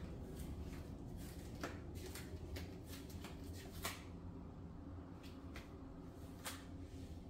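Quiet room tone with a low rumble and a string of soft, irregular clicks and scuffs, the sharpest about four seconds in.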